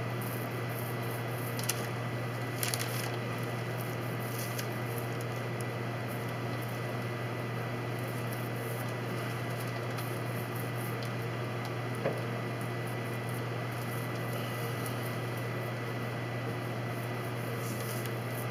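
A small paint roller loaded with white paint, squishing softly as it is worked in the tray and rolled over wooden boards, under a steady low hum. A few faint light clicks, the sharpest about twelve seconds in.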